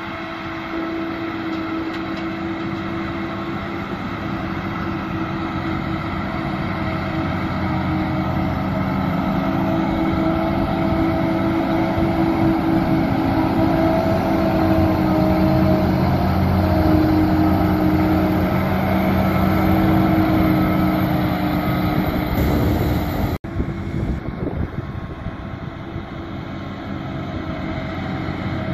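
Krone Big X 630 self-propelled forage harvester chopping grass at full work, its engine and chopper running with a steady hum of several tones, together with the tractor pulling the trailer alongside. It grows louder toward the middle and cuts out suddenly for an instant about two-thirds through before resuming.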